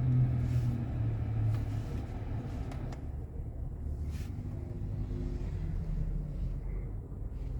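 2017 Kia Sorento engine idling with a steady low rumble, the air conditioning switched on.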